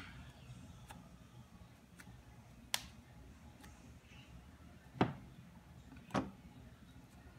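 Light handling of small metal switch contacts being wiped with a cloth, with three sharp clicks spread over the second half, over a faint low background hum.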